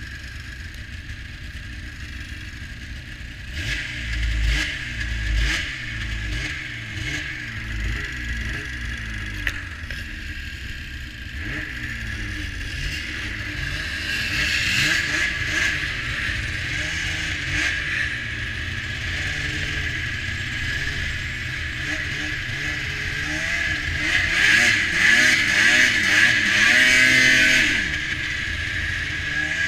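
Polaris Pro X 600 snowmobile's two-stroke engine revving up and down over and over as the sled is thrown into drifts. It is loudest and held at high revs near the end.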